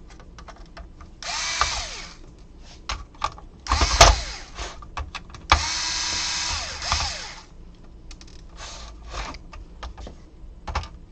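Small electric screwdriver with a Phillips bit backing out screws in short bursts, each about a second long and winding down as it stops, three times. Between the bursts there are light clicks of screws and metal parts being handled, and a sharp knock about four seconds in.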